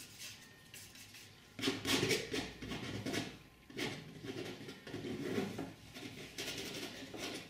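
Steel palette knife scraping and spreading thick oil paint across a canvas: a run of short, scratchy strokes starting about a second and a half in.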